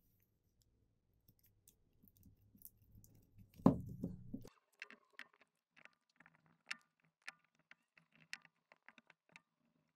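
Quiet handling sounds of paper masking tape and thin foam being pressed down onto a keyboard PCB: small crinkles and clicks, with one sharp knock about four seconds in.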